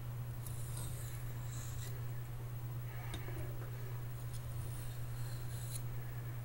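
A knife blade stroked freehand across a sharpening stone: faint, irregular scraping swishes with a few light clicks. A steady low hum runs underneath and is the loudest thing.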